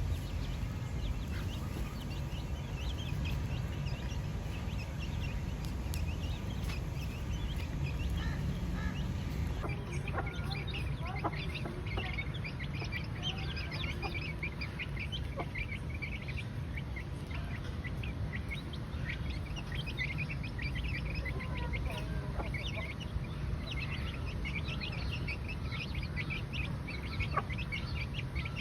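Chickens clucking, with many short high chirps throughout, over a steady low rumble.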